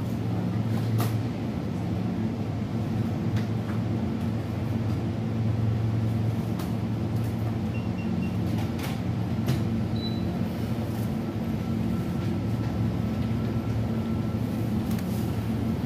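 Steady low hum of a convenience store's refrigeration and air-conditioning machinery, with a few faint clicks and short high beeps.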